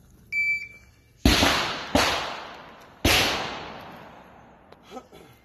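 A shot timer's start beep, one high tone about half a second long, then three gunshots, the first two about 0.7 s apart and the third about a second later. Each shot rings out with a long echoing decay, and a fourth shot comes right at the end.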